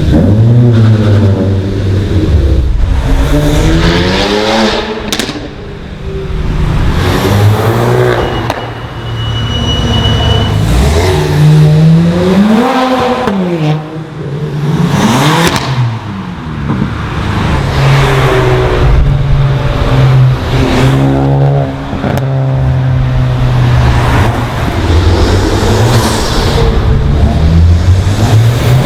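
Tuned and modified cars revving and accelerating past one after another over a steady engine drone, their engine pitch sweeping up through the gears and dropping away; one passes close near the middle with its pitch rising then falling. Two sharp exhaust cracks, about five seconds in and again near the end.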